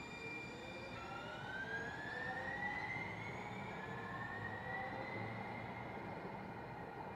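Electric traction motors of a light-rail trolley whining as it accelerates. The pitch climbs slowly, drops back and climbs again in steps, over a low background of city noise.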